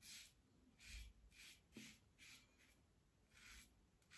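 Edwin Jagger 3ONE6 safety razor with a Rapira blade scraping through stubble under lather, in about six short, faint strokes.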